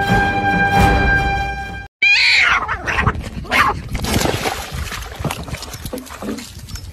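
Background music for the first two seconds, then after a cut a cat meowing loudly again and again while it thrashes in seawater, with water splashing.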